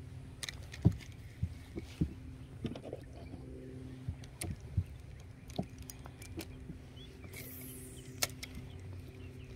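Scattered sharp knocks and clicks of fishing gear being handled in a small boat, the loudest about a second in, over a steady low hum.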